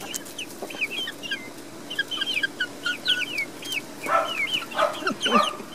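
Several hens clucking and chirping excitedly over mealworms held out by hand: a steady stream of short high chirps, with a few louder clucks about four to five seconds in.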